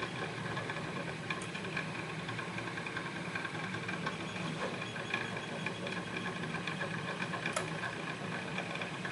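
Steady low hum with a few faint isolated clicks from a lock pick working the pins of a pin-tumbler lock.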